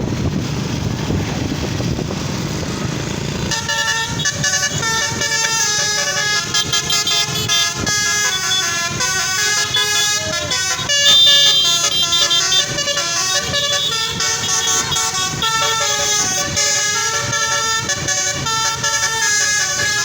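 Steady noise for about three and a half seconds, then a Basuri telolet bus horn plays a fast melody, its notes changing several times a second.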